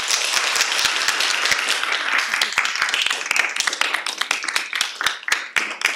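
Audience applauding: many hands clapping together, thinning out to a few scattered claps near the end.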